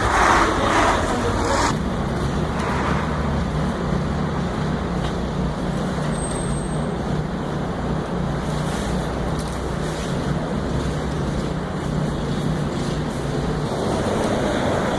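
City street traffic: a steady wash of vehicle noise with a low engine hum underneath, and a louder rush of a passing vehicle in the first couple of seconds.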